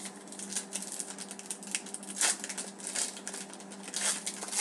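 Foil wrapper of a Panini Certified hockey card pack crinkling and tearing as it is pulled open by hand: a run of small rapid crackles with a few louder crinkles, over a faint steady low hum.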